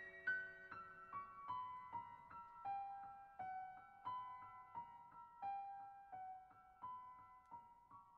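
Background music: a slow melody of single piano notes, about two a second, each struck and fading, stepping downward at first and then moving up and down within a narrow range.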